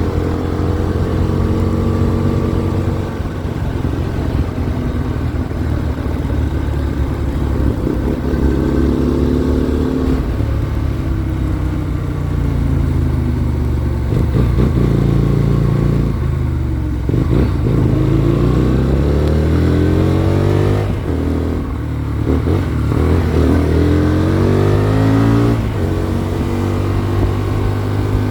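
Hyosung Comet GT250's V-twin engine under way, revving up and dropping back in pitch several times as it shifts through the gears, with wind noise on the microphone.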